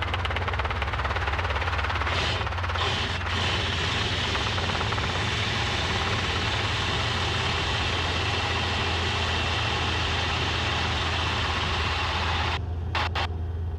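Robinson R-22 helicopter running steadily in low flight and a running landing, heard from a camera mounted outside under the fuselage: a constant low drone of the engine and rotors under a steady rush of wind and airflow. Near the end the rushing hiss drops out in a few short gaps.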